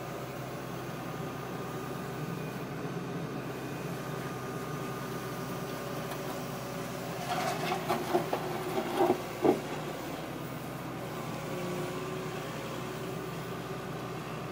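Excavator engine and hydraulics running steadily as the bucket digs into soil. A quick run of sharp knocks comes between about seven and nine and a half seconds in, the last one the loudest.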